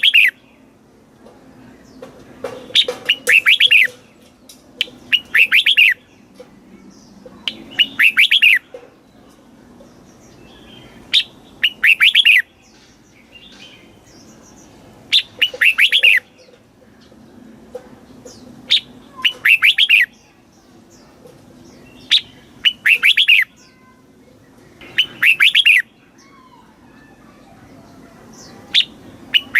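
Red-whiskered bulbul singing short, loud whistled phrases, one roughly every three seconds, each a quick run of notes lasting about a second.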